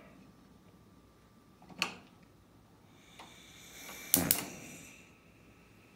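Kitchen handling sounds: a single knock about two seconds in, then a soft rustle that builds into two sharp clacks in quick succession a little after four seconds, ringing out briefly.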